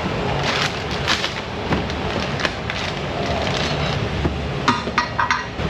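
Metal parts and tools clattering in a series of sharp clanks a little before the end, with a few lighter knocks earlier, over a steady background rumble.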